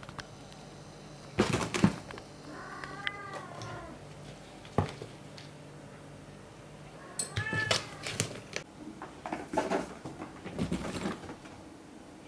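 Burmese kitten meowing twice: a short mew that rises and falls about three seconds in, and another short mew around seven seconds. Scattered knocks and rustles come in between, the loudest a cluster of knocks near the start.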